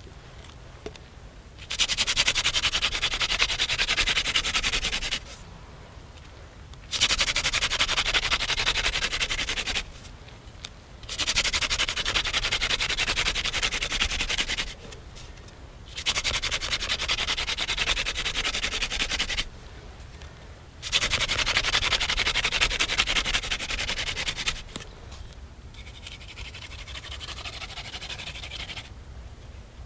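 Hand-drill fire-starting: a mullein-stalk spindle spun between the palms, grinding into a wooden fireboard and building up black char dust toward an ember. It comes in five loud spells of grinding, each about three to four seconds, with short pauses between, then a softer stretch near the end.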